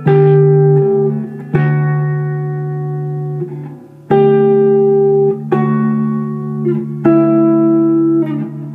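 Guitar in drop D tuning playing a slow ambient riff: pairs of notes high on the neck picked about five times, each left to ring over a droning low D.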